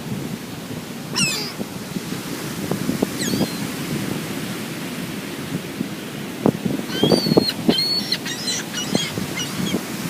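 Seagulls calling in short, high, wavering cries, one early and a burst of several in the second half, over steady surf and wind on the microphone.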